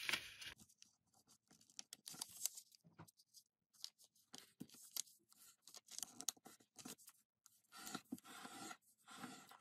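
Faint crinkling and rustling of a sheet of origami paper being folded and creased by hand, in short scattered bursts with quiet gaps between.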